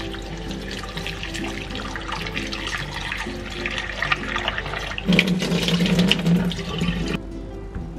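Kitchen tap running into a ceramic bowl while hands rub it clean under the stream. About five seconds in the splash gets louder as the bowl is tipped and the water lands in the stainless steel sink, then it stops suddenly near the end. Light background music plays underneath.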